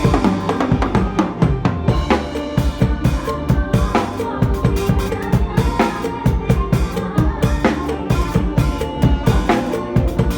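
Drum kit played to a fast mor lam rhythm, with bass drum, snare and rimshot hits keeping a busy, even beat over the song's backing music.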